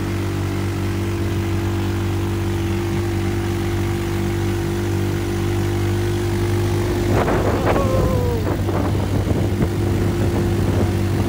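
Off-road vehicle engine running at a steady speed, its drone holding one pitch. About seven seconds in, rattling over bumps and a short falling tone join in.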